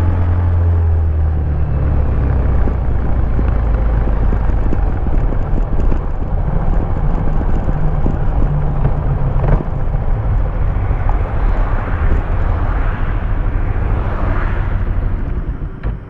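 Bajaj Pulsar 200 DTSi single-cylinder engine on its stock exhaust, heard from the rider's position with wind noise, running low and rough as the bike rolls off the throttle and slows. The sound drops away sharply near the end as the bike comes to a stop.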